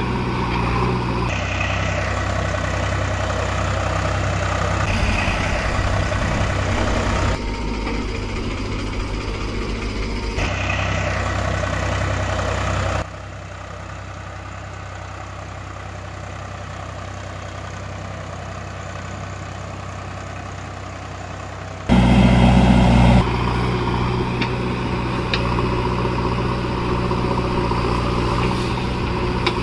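Steady engine idling, its pitch and level switching abruptly several times. It drops quieter for a long stretch in the middle and is briefly louder about two thirds of the way through.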